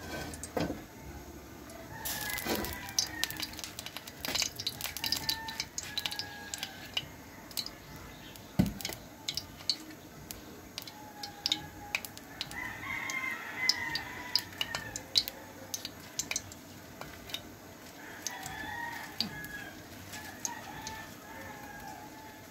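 Chickens calling: a rooster crowing a few times, with hens clucking. Scattered sharp clicks and knocks run beneath the calls.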